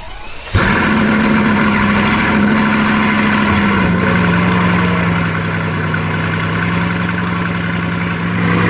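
Car engine starting about half a second in and running steadily at idle, its pitch settling slightly lower a few seconds later.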